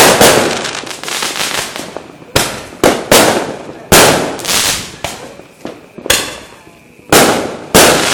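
Fireworks going off: about nine loud bangs at irregular intervals, each trailing off in a crackling, rumbling decay.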